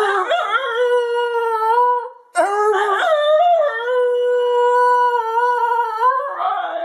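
Basenji howling in two long, wavering howls with a short break about two seconds in. The second howl holds a steady pitch for a while before wobbling at the end.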